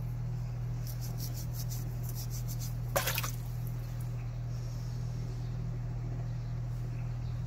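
Grey abrasive pad scrubbing a wet silver-and-gold ring: quick rubbing strokes, about four a second, that stop about three seconds in with a single sharp click. A steady low hum runs underneath.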